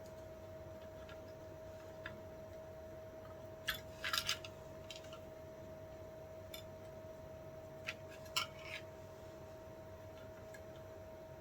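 Small sharp clicks and clinks of parts and tools being handled during the teardown of a Samsung door lock, in two short clusters about four and eight seconds in, over a faint steady hum.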